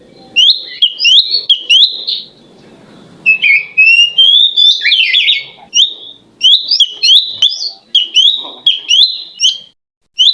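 A cak cungkuk songbird singing loud, clear whistled notes, each a short quick upward sweep, delivered in rapid runs of about two a second with a brief pause early on and a break near the end.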